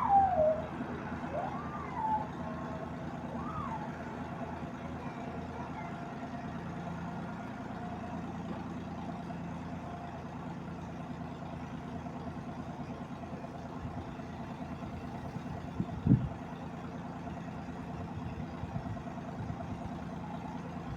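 Steady low engine hum running throughout, with a few short rising-and-falling whistle-like calls in the first few seconds and a single sharp knock about 16 seconds in.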